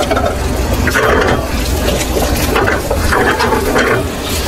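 Freshly boiled pasta being drained: hot water pouring and splashing off it in several uneven surges.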